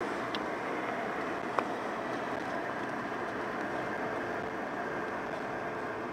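Steady cabin noise inside a Boeing 717 as it taxis, from its two rear-mounted Rolls-Royce BR715 turbofans at low power, with a single sharp click about a second and a half in.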